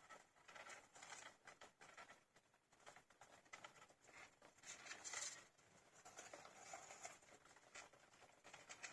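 A litter of two-week-old hamster pups scrabbling and rustling about, with faint chirps. The sound is a quiet, busy stream of little scratches and ticks, a little louder about five seconds in.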